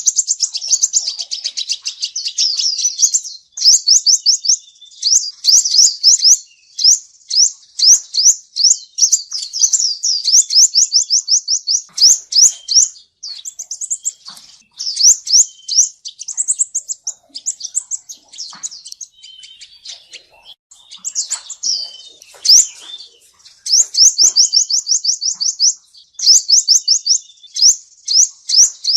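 Male sunbird singing: rapid, high-pitched trills of sharp notes, many a second, in runs of one to three seconds separated by brief breaks.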